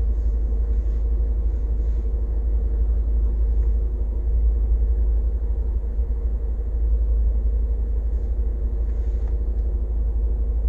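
Inside a car's cabin: steady low rumble of the engine and road noise, with a faint even hum above it.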